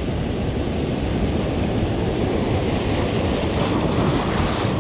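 Ocean surf breaking and washing over a rocky shore, with wind buffeting the microphone. A wave washes in louder about three and a half seconds in.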